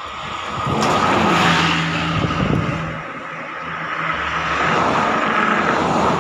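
Buses passing on the road: engine and tyre noise swells to a peak about a second and a half in, fades, then a second vehicle builds up and passes near the end.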